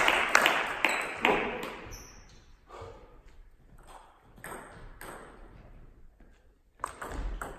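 Table-tennis ball clicking sharply on bats and table in a sports hall: a quick run of taps in the first second or so, then only a few single taps while the hall goes quiet, and a louder burst of sound near the end.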